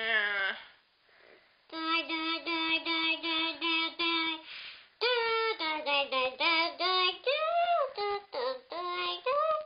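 A high-pitched voice making a wordless sung noise: a short falling glide, then a quick run of about eight short notes on one pitch, then a string of sliding, swooping notes.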